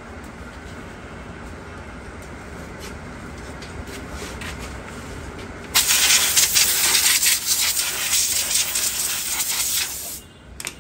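Pressurised spray hissing loudly for about four seconds, starting a little past halfway and cutting off suddenly, over a faint steady hiss.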